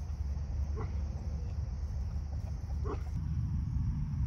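Two short animal calls about two seconds apart over a steady low rumble.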